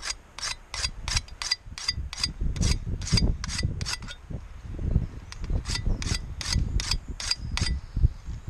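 Extra-coarse diamond sharpening stone scraping in quick short strokes along the steel edge of a Cold Steel Special Forces shovel, about three strokes a second, taking off the rough edges. The strokes stop for a second or so midway and then start again, with low knocks from handling under them.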